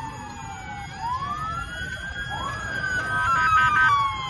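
Several emergency vehicle sirens wailing at once, their pitches gliding up and down and overlapping, with a quick warbling siren pattern that is loudest about three seconds in. A low background rumble runs underneath.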